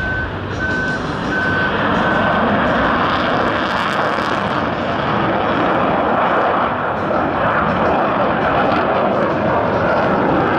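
F-16 fighter jet flying a display pass overhead: loud, steady jet engine noise with no distinct tones. Over the first two seconds or so a high electronic beep repeats a bit faster than once a second, four times.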